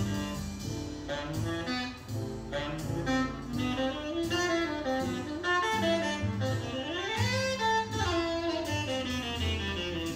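Instrumental background music: a melody over a bass line, with one phrase gliding up and back down about seven seconds in.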